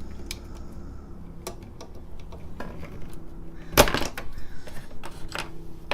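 Small plastic clicks and taps of a tool working under a keycap on a TRS-80 Model I keyboard, with a sharp snap a little under four seconds in as the tight keycap is levered off its switch post, then a few lighter clicks.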